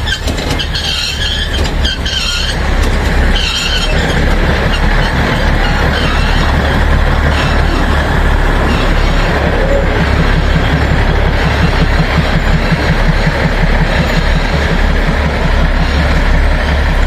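Narrow-gauge Neral–Matheran toy train rolling into the station, its diesel locomotive running steadily. Short wheel squeals come in the first few seconds, followed by a continuous rhythmic rumble of the engine and coaches.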